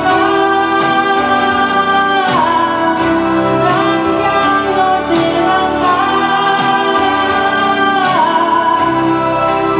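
A woman singing into a microphone over acoustic band accompaniment, holding long notes and sliding down in pitch twice, about two seconds in and near the end.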